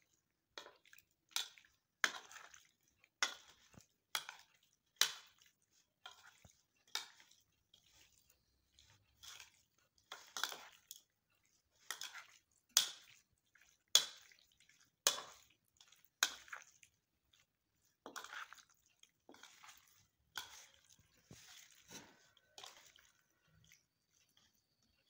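Metal spoon mixing raw goat liver pieces with spice paste in a bowl: a string of short, wet strokes, roughly one a second and unevenly spaced.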